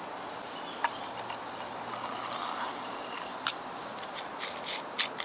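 Faint fizzing from a plastic bottle of strongly carbonated water as the cap is eased open a little at a time to let the gas out without foaming over, with a few small clicks from the plastic cap.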